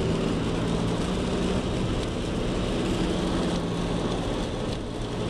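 Steady road noise inside a moving car on a rain-wet road: tyres hissing on wet pavement over a low, steady hum.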